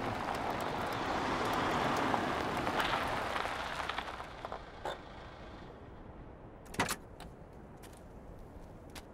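Small hatchback car driving up a narrow paved road and coming to a stop: tyre and engine noise swells, then fades over the first five seconds. About seven seconds in, a sharp click as a car door is opened.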